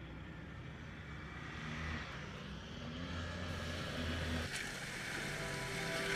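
A four-wheel-drive vehicle's engine working up a steep track, its note stepping up and down as the driver revs, and gradually getting louder.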